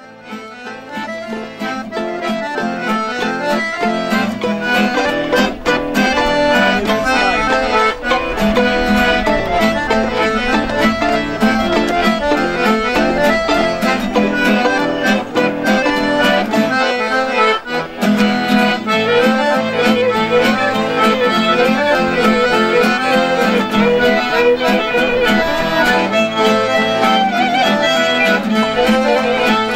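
Small folk band playing a traditional tune on accordions, fiddle and acoustic guitar, the accordion leading. It fades in over the first few seconds, then plays on at a steady level.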